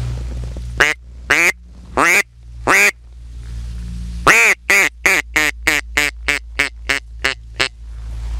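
Mallard duck call blown by mouth, sounding hen quacks: four single quacks, then a longer quack followed by a quick run of about a dozen shorter quacks that get quieter toward the end. This is the descending hen sequence used to draw ducks to decoys.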